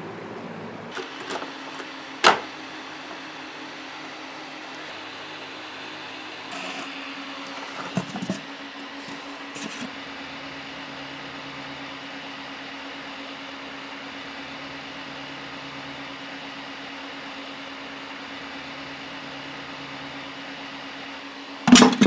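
Cooling fans of a 12-volt Peltier cooling module running with a steady hum and a low tone. A few short knocks from handling the bucket and thermometer come through it.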